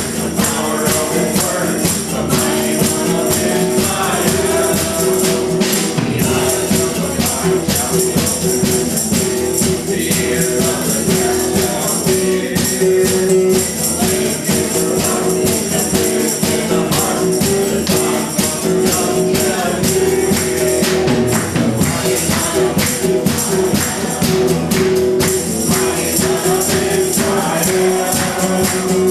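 Live worship music: several voices singing together over acoustic guitar and a drum kit with cymbals, playing steadily throughout.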